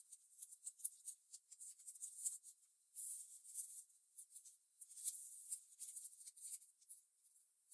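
Origami paper rustling and crackling as fingers fold it and press down the creases: many short, crisp, faint crackles in quick irregular succession.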